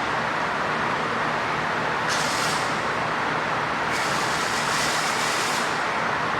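Horizontal bandsaw running, a slow-blade-speed machine for cast aluminum, with a steady mechanical noise and low motor hum while the blade cuts through an aluminum casting. A higher hiss swells twice, briefly about two seconds in and again for a second and a half a little later.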